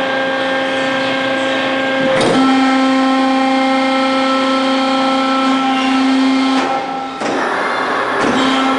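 Log swing charger machinery on a veneer lathe line running with a steady pitched hum. The hum shifts slightly about two seconds in, drops out briefly about seven seconds in, then returns.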